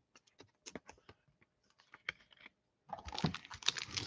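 A few light scattered clicks and taps of cards being handled, then, from about three seconds in, the dense, growing crinkle of a foil trading-card pack being torn open.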